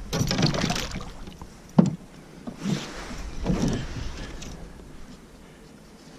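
Fishing gear being handled aboard a kayak while tangled lines are sorted: rustling and clatter in a couple of spells, with one sharp knock just under two seconds in.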